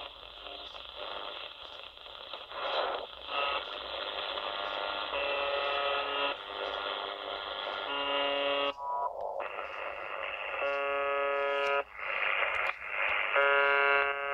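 Shortwave receiver hiss and static in AM as it is tuned down through the 60-metre band. The set then lands on 4625 kHz, the frequency of the Russian UVB-76 station known as "The Buzzer". Its harsh buzz comes through about a second at a time, roughly every two and a half seconds, three times in the second half.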